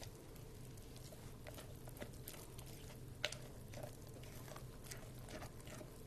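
A silicone spatula stirring thick pancake batter in a glass mixing bowl: faint wet squishing with light scrapes and small taps against the glass, one sharper tap a little past halfway, over a low steady hum.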